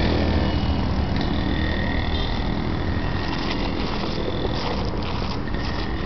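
Road traffic: a passing vehicle's engine rumble that eases off over the first couple of seconds, then the crunch of sandalled footsteps on loose stone chippings from about halfway through.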